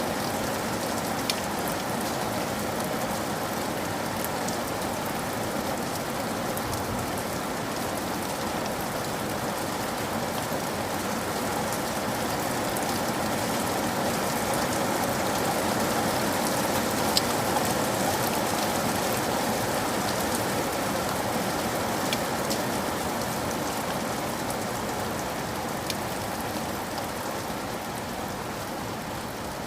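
Steady rainfall, an even hiss with scattered drop ticks; it swells a little midway and eases slightly near the end.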